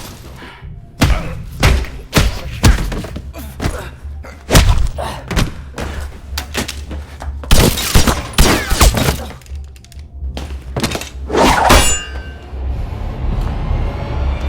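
Rapid fight sound effects: punches and body blows landing one after another as heavy thuds and whacks, over music. Near the end comes a louder crash with a ringing tail, like something breaking.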